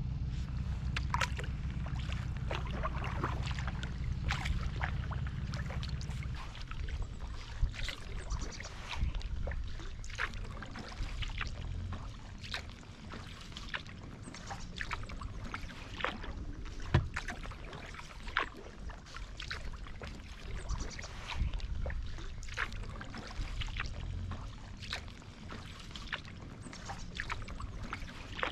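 Kayak paddling at an easy pace: the carbon double-bladed paddle dipping and splashing, with water dripping and trickling off the blades every second or two. A low steady hum runs underneath for the first six seconds and then stops abruptly.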